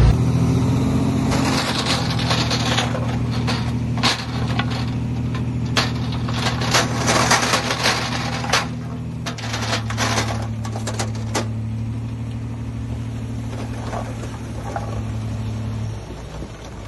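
Heavy earthmoving machine's diesel engine running steadily, with a spell of sharp cracks and clatter from about a second in until past the middle. The engine sound drops away shortly before the end.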